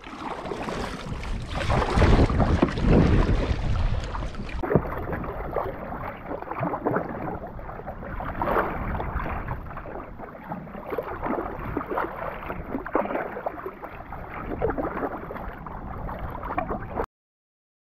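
Kayak paddle strokes splashing through choppy sea water, with wind rumbling on the microphone; the sound cuts off suddenly near the end.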